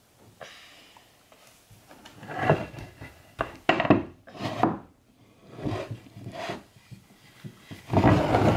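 Cherry wood step stool being turned over and set down on a wooden floor: a series of wooden knocks and scrapes, the loudest near the end as it lands on its feet.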